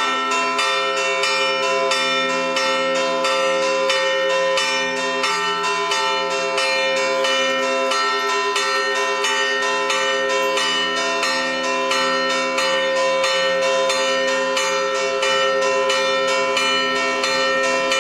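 The two largest bells of an electrified church bell tower, tuned E3 and A3, rung in a scampanìo. They hang still and are struck in a rapid, steady run of about three strokes a second, their tones ringing into each other.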